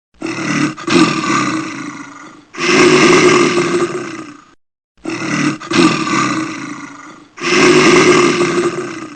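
Big cat roaring: a roar and then a longer one, with the same pair repeated about five seconds in.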